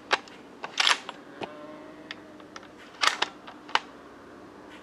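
A run of sharp clicks and snaps, about seven in all, some coming in quick little clusters, over a quiet woodland background.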